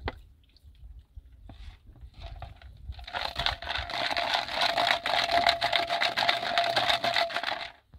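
Water pouring in a steady stream from a small plastic bottle into a larger plastic jug, splashing and gurgling for about five seconds from about three seconds in and stopping just before the end. Before it come a few faint clicks of plastic bottles being handled.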